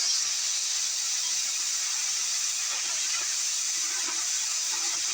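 Metal-cutting torch hissing steadily as it cuts through a steel backhoe bucket.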